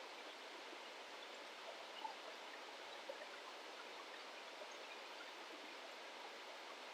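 Waterfall's running water, a faint steady rush with scattered small splashing ticks.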